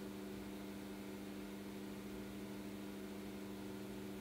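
Steady low hum with a few constant low pitches and faint hiss: room tone.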